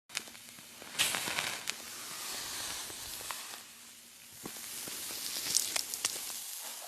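Fire burning: a steady crackling hiss dotted with sharp pops and snaps. It starts abruptly and swells louder about a second in and again near the end.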